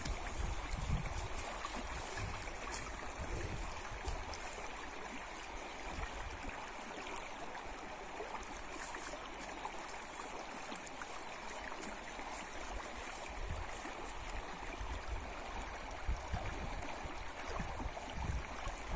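Shallow, fast-flowing small river rushing steadily over a riffle.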